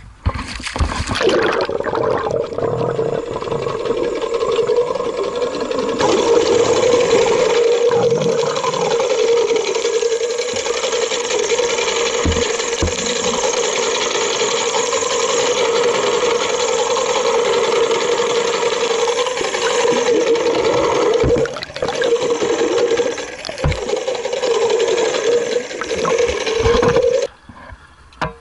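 Loud steady motor drone with a constant hum, under rushing water and wind noise. It starts suddenly and cuts off just before the end.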